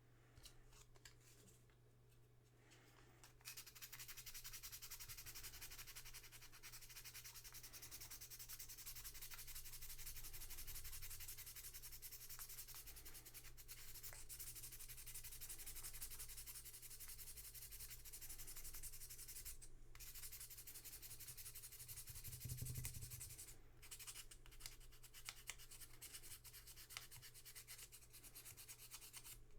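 Faint, continuous scratchy rubbing of small parts being scrubbed or abraded by hand during cleaning of a WW2 jeep headlight switch. It starts a few seconds in and stops briefly twice.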